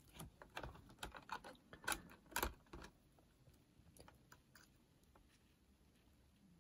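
Light clicks and taps of a small cassette player's circuit board and plastic chassis being handled, with tweezers among the parts. There are about a dozen irregular clicks in the first three seconds, then only a few faint ticks.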